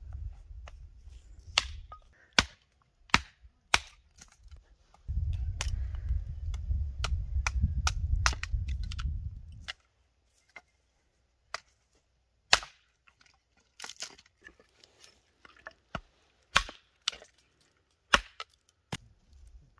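Hatchet splitting kindling on a wooden stump chopping block: a long run of sharp, irregularly spaced chops, some much louder than others. A low rumble sits under the strikes in the first couple of seconds and again from about five to ten seconds in.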